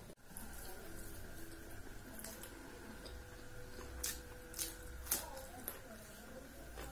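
Close-up eating sounds: wet chewing and lip smacks from a person eating rice and curry by hand, with a few sharp smacks about four to five seconds in. A faint steady hum lies underneath.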